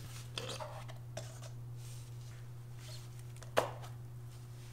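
Rear shock absorber parts handled by hand: faint rustles and light clicks, then one sharp click about three and a half seconds in, over a steady low hum.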